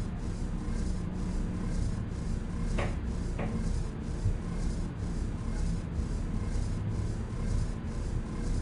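Sound-designed ambience for a frozen-time scene: a steady low rumbling noise with a faint hiss pulsing about twice a second. About three seconds in come two short falling tones, half a second apart.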